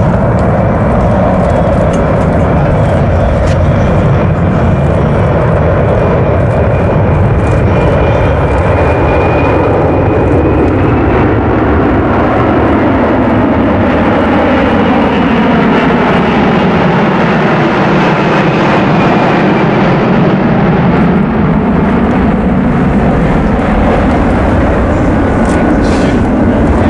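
A C-17 Globemaster III's four turbofan engines run loud and steady as it flies its display overhead. A high whine sits over the jet roar; it rises a little about ten seconds in, then slowly drops in pitch as the aircraft banks away.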